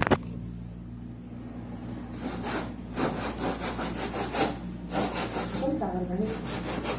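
Hand saw cutting a ridged WPC (wood-plastic composite) cladding panel in quick back-and-forth strokes, starting about two seconds in, after a single knock at the start.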